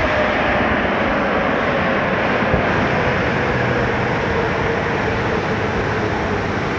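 Loud, steady mechanical roar with one tone in it slowly sinking in pitch.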